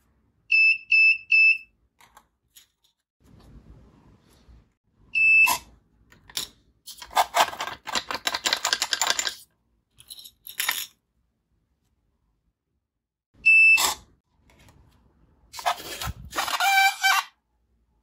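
Buzzer of an Arduino RFID door lock giving three quick high beeps, then twice a single beep followed by a small servo motor whirring for about two seconds as it works the door latch.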